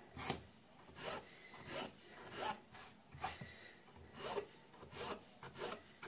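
Kitchen knife slicing through raw peeled potato and striking the cutting board beneath, a steady series of cuts at a little more than one a second.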